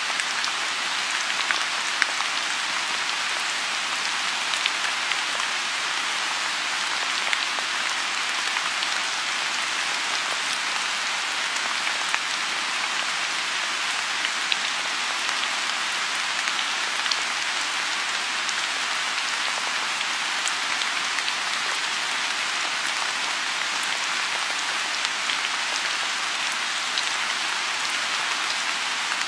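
Steady rain falling on a lotus pond: an even hiss with scattered single drops ticking out above it.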